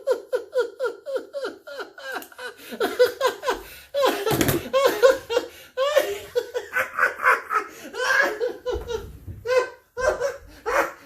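A man's long, exaggerated Joker-style laugh: a rapid string of 'ha-ha-ha' bursts, broken by short pauses.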